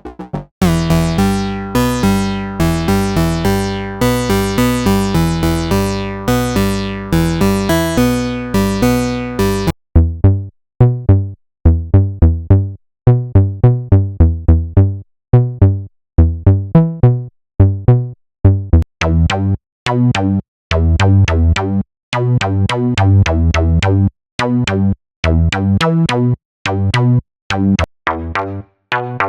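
SynthMaster One software synthesizer presets playing sequenced riffs. First comes a dense, bright, rhythmic patch. About ten seconds in it changes to short, punchy staccato notes with gaps, which turn brighter near the two-thirds mark.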